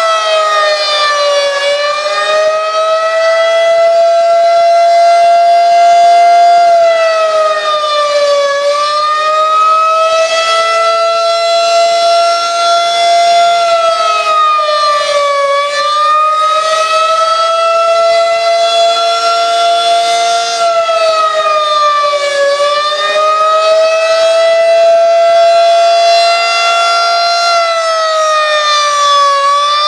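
Federal Signal 2001-SRN outdoor warning siren sounding the attack signal: a loud rotating-siren tone whose pitch sags and climbs back up again about every seven seconds.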